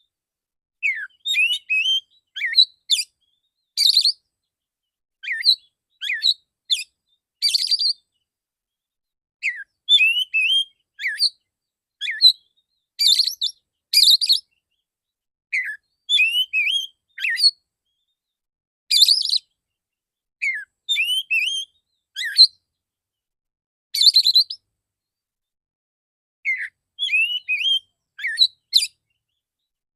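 Male oriental magpie-robin singing: short, loud phrases of clear whistles, falling slurs and sharp notes, one every second or two, with dead silence between them.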